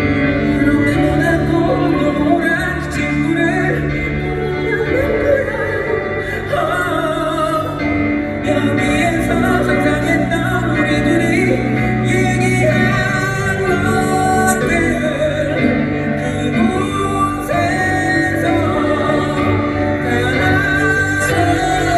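Live pop ballad played by a band, with a voice singing over it.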